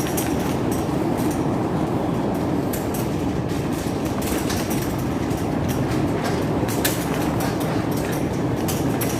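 Strong wind buffeting the phone's microphone: a steady, loud rumble with scattered small clicks and rattles.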